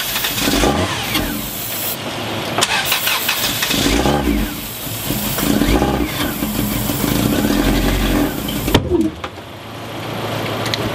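A 1994 Subaru Legacy's flat-four engine cranking on the starter while aerosol starting fluid is sprayed into the intake, firing in rough surges, a first start after four years of sitting. A sharp bang about eight and a half seconds in is a backfire through the intake, and the engine stops just after it.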